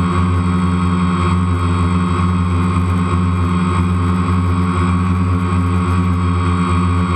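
DJI Phantom quadcopter's motors and propellers buzzing steadily as it hovers, heard from the GoPro mounted right under it.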